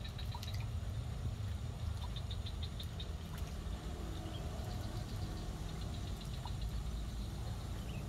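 Trains of rapid, high-pitched pulsing calls from small animals in the vegetation, each lasting a second or two, over a steady low rumble.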